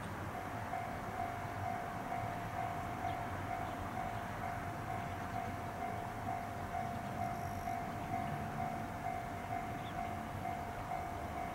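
Railway level-crossing warning alarm ringing steadily, its repeating electronic tone starting just after the opening and going on throughout: the signal that a train is approaching. Low outdoor rumble underneath.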